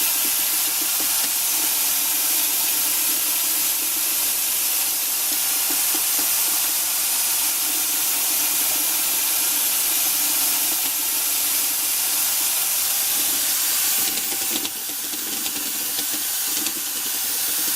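A steady, loud hiss with a faint machine whine under it, from waterproofing work equipment. It dips briefly about fifteen seconds in, then comes back.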